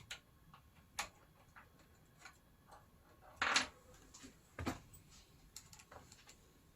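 Scattered light clicks and taps of hands working on a PlayStation 3 Slim console, with a brief rustle about three and a half seconds in and a duller knock about a second later.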